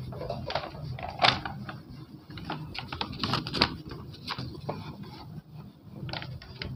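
Hand-held whiteboard duster wiping marker off a whiteboard: irregular rubbing and scuffing strokes, with a few sharper knocks.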